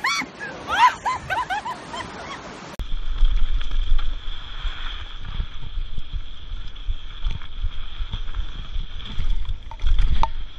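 A high-pitched voice shrieking and laughing for the first couple of seconds. It cuts to a mountain bike riding a dirt trail: a steady low rumble of wind and bumps on a bike-mounted camera, the bike rattling over the ground, a steady high whine, and a couple of harder knocks near the end.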